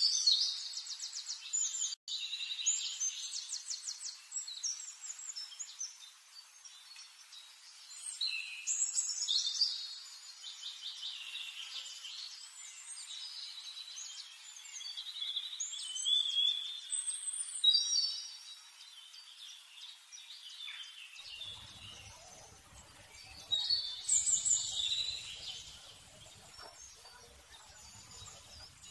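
Songbirds chirping and trilling in repeated high, rapid phrases, with short lulls between bursts of song.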